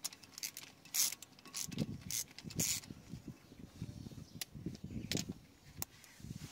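Metal hand tools and freshly removed bolts clicking and clinking as they are handled, with low rumbling handling noise from about a second and a half in.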